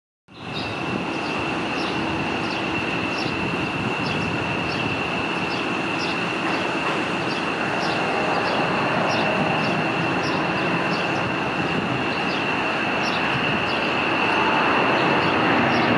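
Boeing 757-200 freighter's twin Pratt & Whitney PW2040 turbofans at takeoff power: a steady jet roar with a high, even whine, growing a little louder near the end as the aircraft climbs out. A faint regular ticking, about three every two seconds, runs beneath it.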